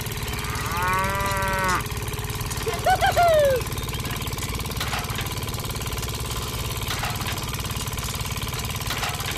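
A small engine runs steadily with a fast low pulse, while a cow moos twice: once about a second in and again near three seconds, the second call falling in pitch.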